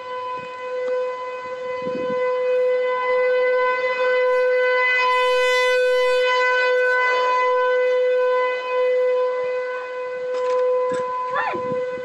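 Outdoor storm warning siren sounding a steady tone that holds one pitch, its loudness slowly swelling and fading. It signals a severe weather warning.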